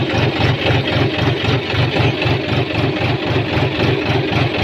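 A John Deere tractor's diesel engine running with a steady chugging pulse, about seven beats a second, heard from the driver's seat as the tractor creeps through wet mud.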